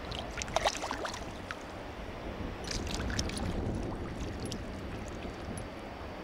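A hooked lenok thrashing in shallow river water, splashing at the surface in two bursts, about half a second in and again around three seconds in, over the steady rush of the stream.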